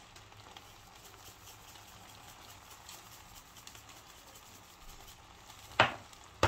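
Faint crackling sizzle of pasta with beef keema and vegetables cooking in a nonstick frying pan, with one sharp knock near the end.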